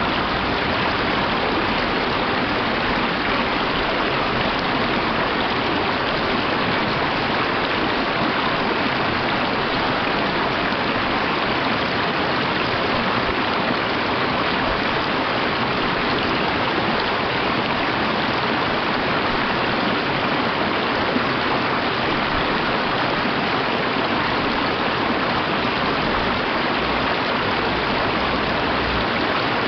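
Mountain stream flowing over rocks and small cascades: a steady, unbroken rush of water.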